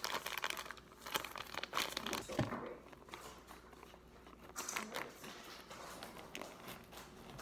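Plastic bag crinkling as it is handled and cut open with scissors: dense crackling for the first couple of seconds, then scattered clicks and rustles.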